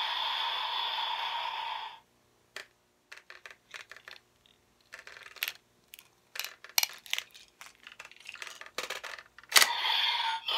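Plastic clicks and clacks as Full Bottles are pulled out of and pushed into the slots of a DX Evol-Driver toy belt. The belt's electronic sound plays for the first two seconds and cuts off, and a loud electronic sound from the belt starts again about a second before the end.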